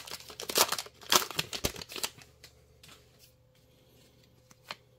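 Plastic foil wrapper of a 2023 Topps Series 1 baseball card pack being torn open and crinkled by hand: a quick run of crackling tears over about two seconds. It then goes nearly quiet, with a few soft ticks of handled cards near the end.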